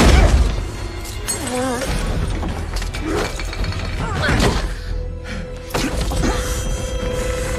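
Action-film soundtrack: a heavy crash right at the start, then more crashing and shattering impacts over the music score, with a long held note in the score near the end.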